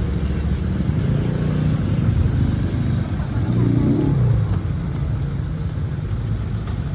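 A motor vehicle engine running close by, swelling and rising briefly about halfway through.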